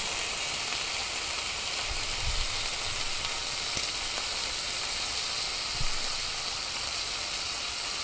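Food frying in a pan, a steady sizzle with a couple of soft low knocks from the pan or a utensil.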